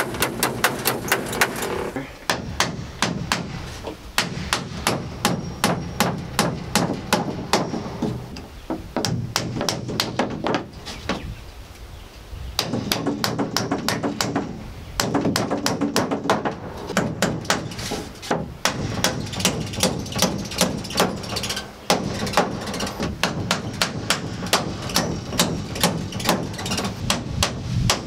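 Hammer driving nails into plywood sheathing on a wooden frame: fast runs of strikes, with a quieter break of a few seconds about nine seconds in.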